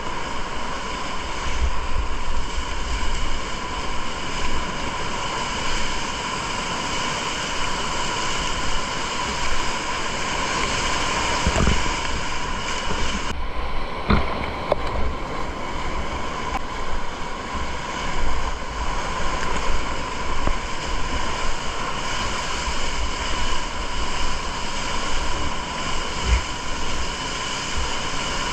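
Big-water whitewater rushing and splashing around a kayak, heard close up through an action camera, with wind buffeting the microphone. About halfway through, a wave washes over the camera and the sound goes briefly muffled, with a couple of sharp knocks.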